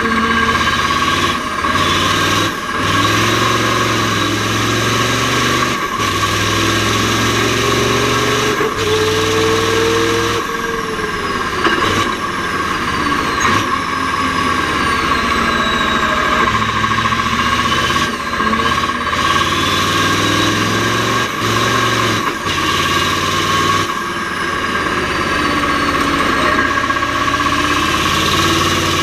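Mack R series V8 diesel race truck engine pulling hard through the gears of its Roadranger manual gearbox: the engine note climbs, breaks off briefly and drops at each shift, again and again. A steady high whine runs over it.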